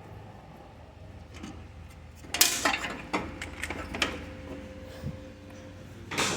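Metal clanks and rattles of tools and parts being handled while a car's front end is unbolted. The rattling comes in a cluster a couple of seconds in, and a loud single clank near the end, all over a steady low hum.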